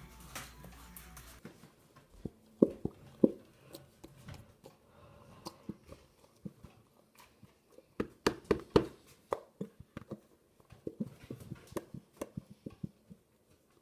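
Plastic school-glue bottles being squeezed by hand, with irregular short clicks and pops, several close together about eight seconds in.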